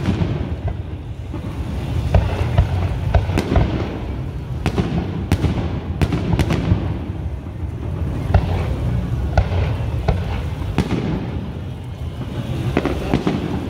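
Aerial firework shells from a Grucci display bursting, heard as a string of sharp bangs that sometimes come several a second. Beneath them runs a continuous low rumble of distant booms and echoes.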